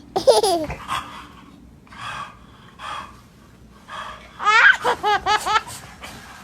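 A young child laughing: a high squeal at the start, then gasping breaths, then a quick run of high giggles about four a second.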